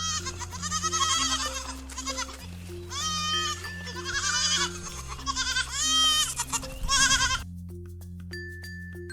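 Sheep bleating, about six quavering calls one after another, which stop about seven seconds in. Light mallet-percussion children's music plays underneath.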